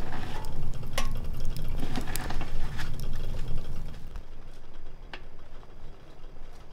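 Wood fire crackling in a wood-burning stove: scattered sharp pops and snaps, over a low rumble that drops away about four seconds in.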